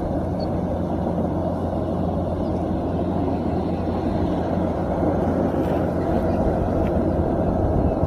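Kubota rice combine harvester running steadily while harvesting, its engine and threshing machinery making a constant low mechanical noise.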